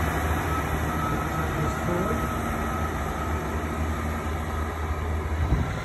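Class 158 diesel multiple unit pulling away, its underfloor diesel engines giving a steady low drone over the rumble of the wheels on the rails, fading a little as it goes.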